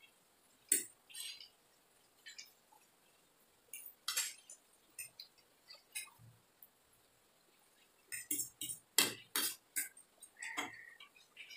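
Metal forks and spoons clinking and scraping against ceramic plates as noodles are twirled up, in scattered irregular clicks that bunch together near the end, with short bursts of noodle slurping.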